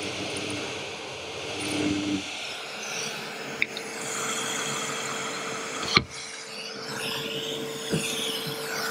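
Pillar drill running while machining a steel tube: a steady motor hum with scraping from the cut, and sharp metallic knocks about four, six and eight seconds in, the one at six the loudest.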